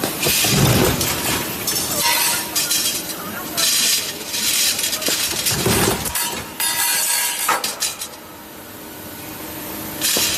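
Roll forming machine for drawer-slide channels running, with repeated irregular bursts of metallic clanging and clattering from its press and the formed steel channel. The clanging eases off in a quieter stretch near the end.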